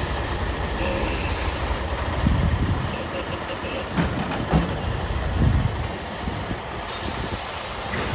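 Semi-truck's diesel engine running with a steady low rumble.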